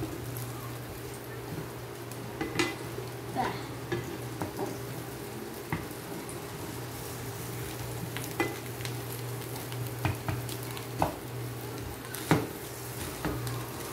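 Wooden spatula stirring and scraping sliced onions in a nonstick frying pan, with irregular knocks of the spatula against the pan, the loudest near the end, over the sizzling of the onions frying in oil. A steady low hum runs underneath.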